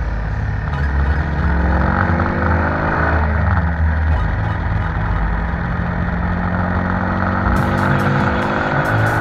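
Motorcycle engine running under way, its pitch climbing as it accelerates, dropping at a gear change about three seconds in, then climbing steadily again, with heavy wind rumble on the microphone.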